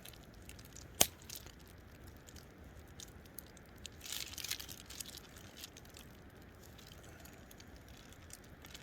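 Hands working steak onto wooden cooking sticks: a single sharp click about a second in, then a short crinkling rustle around four seconds in, with quiet handling between.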